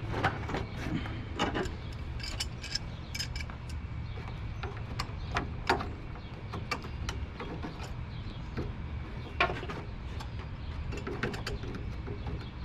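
Scattered metallic clicks, clinks and knocks of hand tools and parts being worked on a car's radiator area, over a low steady hum.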